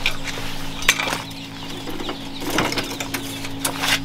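Clatter, knocks and rustling of fishing gear being handled and loaded onto a beach trolley, over a steady low hum.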